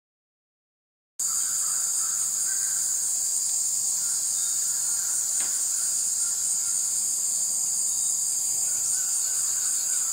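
Cicadas buzzing in a steady, high-pitched drone that starts abruptly about a second in, after a silent gap.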